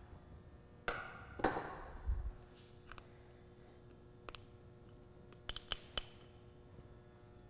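Small metal clinks and a short scrape as steel valve parts, a regulator's diaphragm plate assembly held in a bench vise, are handled and worked apart with hand tools. There are a few sharp taps and a scrape in the first two seconds, then a quick cluster of clicks near the end.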